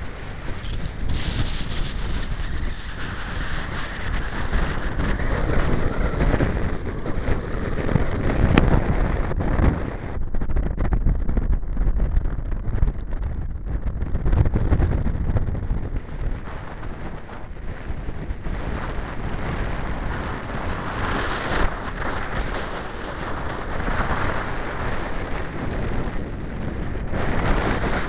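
Strong wind buffeting the microphone: a loud, rumbling rush of noise that swells and eases with the gusts.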